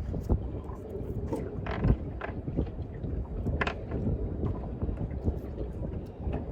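Wind buffeting the microphone on a small boat on open water, with water slapping against the hull and a few short knocks.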